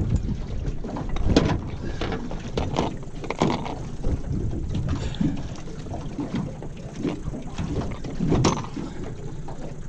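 Lake water sloshing against the side of a small aluminum jon boat over a low wind rumble on the microphone, with a few sharper slaps, about a second and a half in, around three and a half seconds in, and near the end.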